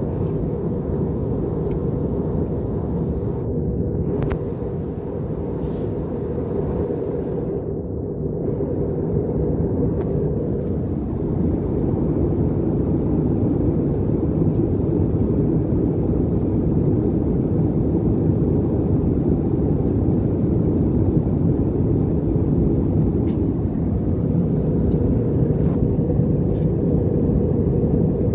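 Steady cabin noise inside an Airbus A320 airliner: a low rumble of engine and airflow noise that grows a little louder about eleven seconds in.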